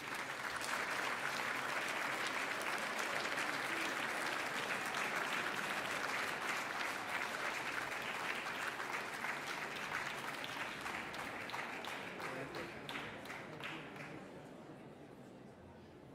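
A large audience applauding, a dense patter of clapping that thins out over the last few seconds into a few scattered claps and dies away.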